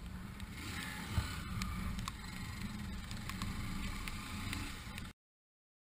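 Motorcycle engine running at low speed, with the hiss of tyres on a wet road. The sound cuts off suddenly about five seconds in.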